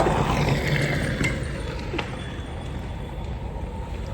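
A road vehicle passing by, its sound falling in pitch over the first two seconds and then fading to a steady rush.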